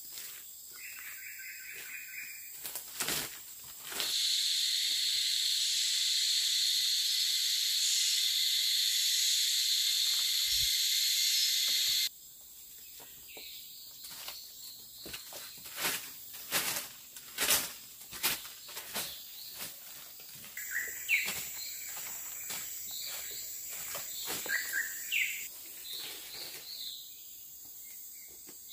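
Rainforest sounds: footsteps crunching through dry leaf litter, a loud, steady, high-pitched hiss that runs for about eight seconds and cuts off abruptly, and then bird chirps over further rustling steps.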